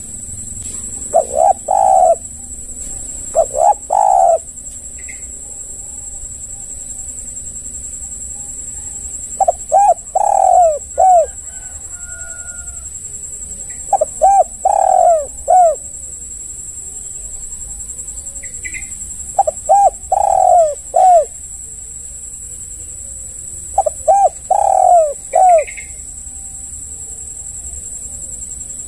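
Spotted dove (tekukur) cooing: six phrases of several low coos each, a few seconds apart. A steady high-pitched hum runs underneath.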